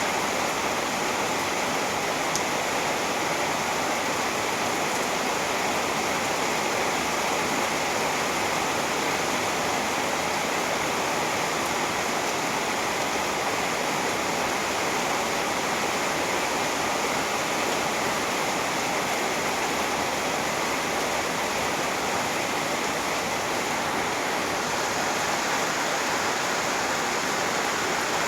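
Steady rainfall, an even, unbroken hiss of falling rain.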